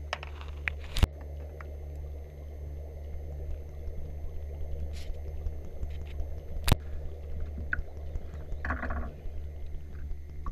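Water sloshing and splashing against a small fishing boat over a steady low hum, with two sharp knocks, about a second in and again about seven seconds in.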